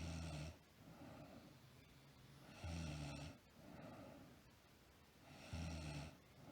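A sleeping woman snoring: three short, low-pitched snores about three seconds apart, at the start, in the middle and near the end, with softer breathing between them.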